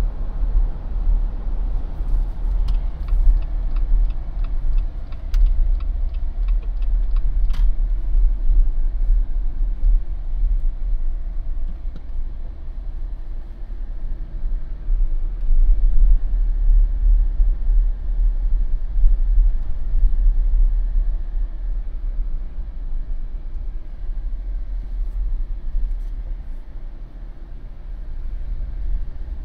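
Low, steady road and engine rumble of a Jeep driving slowly. A short run of light, evenly spaced ticks comes a couple of seconds in.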